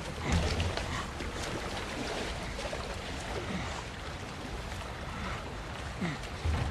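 A fast river rushing steadily, with splashing as a body in a heavy fur pelt slides into the water; the splashes are loudest just after the start and again near the end.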